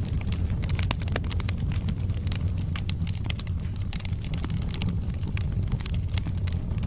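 Wood fire burning in a fireplace, crackling with frequent irregular sharp pops and snaps over a steady low rumble from the flames.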